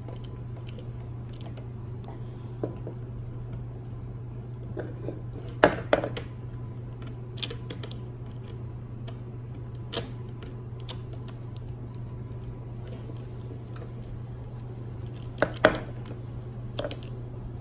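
A steady low background hum, with scattered clicks and clatters of small tools and screws being handled. The loudest clatters come about six seconds in and again near the end.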